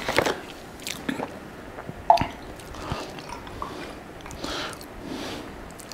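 A small cardboard carton of chocolate milk is opened, with a few short clicks and snaps from its plastic cap. Then, from about halfway through, chocolate milk is poured from the carton into a glass already holding milk, a soft pouring splash.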